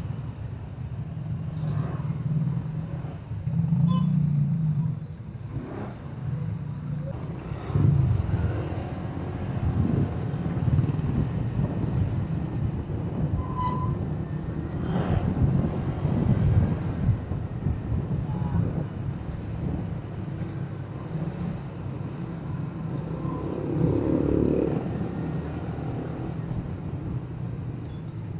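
Motorcycle engine running with wind and road rumble while riding through slow city traffic; the rumble swells and eases every few seconds as the rider speeds up and slows.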